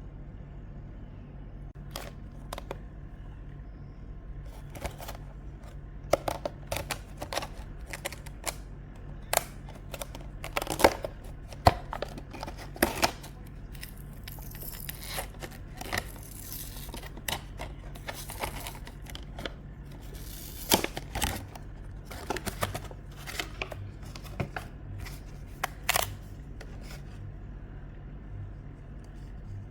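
Artisan keycaps and their packaging being handled: irregular sharp clicks and taps, with stretches of rustling about halfway through, over a steady low hum.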